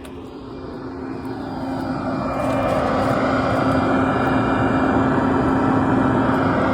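Electric leaf blower running steadily with a whine, its air rushing through the dryer vent duct to blow out lint loosened by the brush. It grows louder over the first two or three seconds, then holds steady.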